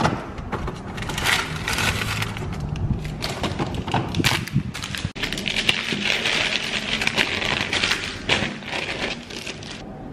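Stiff brown paper bag rustling and crinkling as it is handled and folded open, a dense run of irregular crackles that is busiest in the second half and stops shortly before the end.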